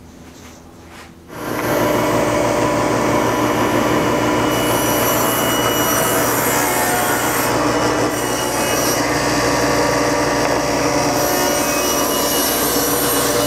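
Table saw running and cutting a rabbet along a wooden board. The blade's cut is a steady, even hiss over a constant motor hum, and it comes in suddenly about a second in.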